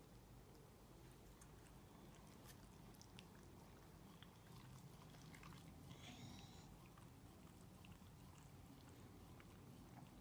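Near silence, with faint scattered clicks of a Shiba Inu licking a cat's fur and one brief, faint high squeak about six seconds in.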